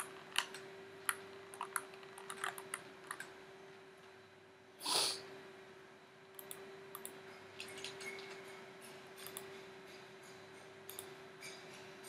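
Faint, scattered computer mouse clicks, several in the first few seconds and more in the second half, as vertices are edited on screen. A short hiss about five seconds in is the loudest sound, over a faint steady hum.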